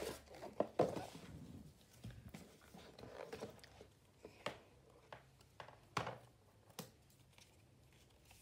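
iPad box and packaging being handled during unboxing: several separate sharp clicks and taps, with light rustling about three seconds in.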